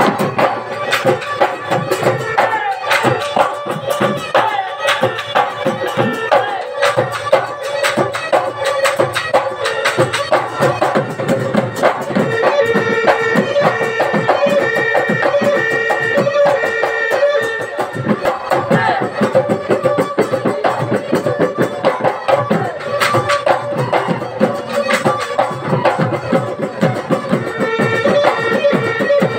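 Live Bihu music: several Assamese dhol drums played together in fast, dense strokes under a steady held melody line.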